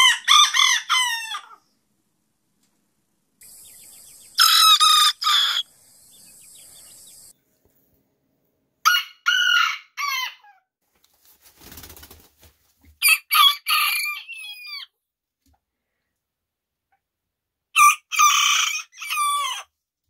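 Bantam roosters crowing: five short, high-pitched crows a few seconds apart, each about one and a half seconds long. A brief faint knocking sits between two of the crows, about halfway through.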